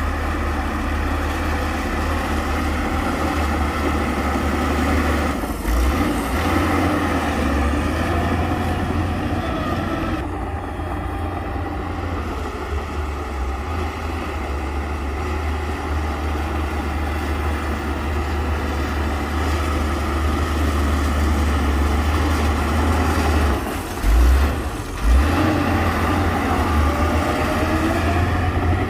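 Heavy diesel engine of earthmoving machinery running steadily with a deep low rumble, joined by two short, loud low thumps a few seconds before the end.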